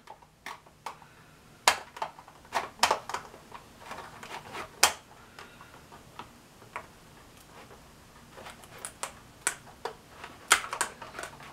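Irregular plastic clicks and taps from hands working the 2019 Hess toy tow truck as its hook boom at the back is raised.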